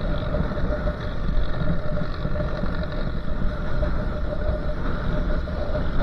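Motorcycle riding at road speed: wind rushing over the camera microphone mixed with engine noise, with a steady hum under it.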